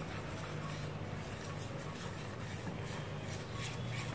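Wire whisk stirring wet gram-flour (besan) batter in a stainless steel bowl: faint scraping and light irregular clicks of the wires against the steel, over a low steady hum.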